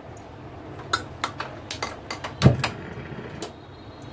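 Metal clinks and knocks of a steel spoon against a pressure cooker pot: about eight sharp clicks over two and a half seconds, with one heavier knock in the middle.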